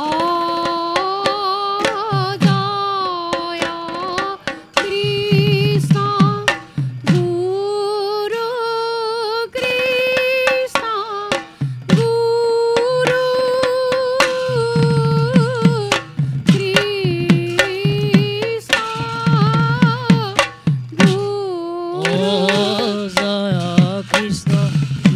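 Devotional kirtan: a lead voice sings long, wavering held notes in phrases of a few seconds, over barrel hand drums keeping time.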